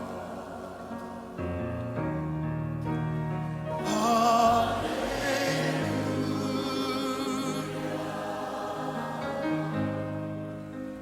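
Live worship music: sustained keyboard chords over changing bass notes, with a singer's voice wavering with vibrato coming in about four seconds in.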